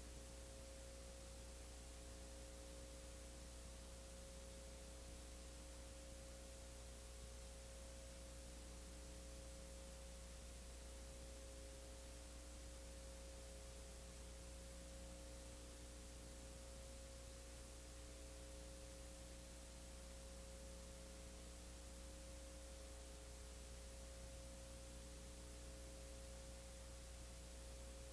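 Near silence: a steady low electrical hum with a faint hiss, and no sound from the scene.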